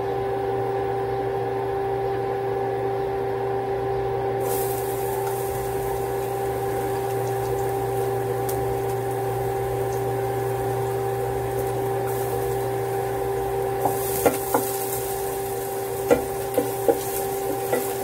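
Chopped garlic going into hot cooking oil in a pot: a light sizzle starts about four seconds in and grows stronger near the end, with a few light clicks from the fork. A steady electrical hum runs underneath.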